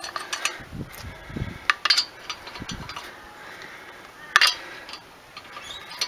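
Wheel nuts being spun onto the wheel studs by hand: scattered metallic clicks and clinks, the sharpest a little past four seconds in.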